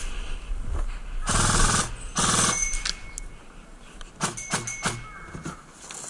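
Airsoft guns firing: two short full-auto bursts of rapid shots, then a few single shots about four seconds in.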